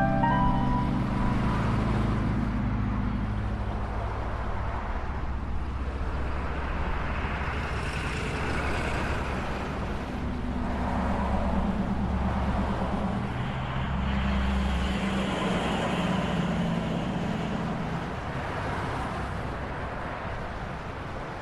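Surf washing on the shore in slow swells over a steady low rumble of wind on the microphone. A low motor drone comes up twice in the middle and fades again.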